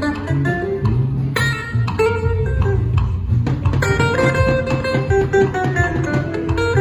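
Music led by plucked guitar notes over a steady bass line.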